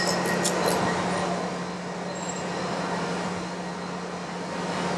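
Cylindrical (OD) grinder with its wheel grinding the end face of a spinning steel shaft: a fine crackling hiss of the wheel on the steel in the first second that then dies away, over the machine's steady hum.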